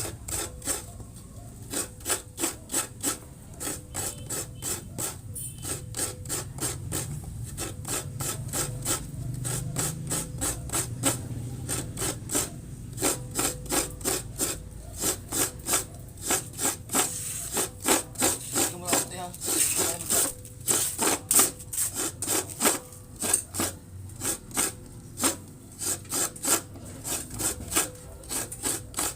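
Coconut flesh being scraped by hand against a toothed coconut grater, a steady run of rasping strokes at roughly two to three a second.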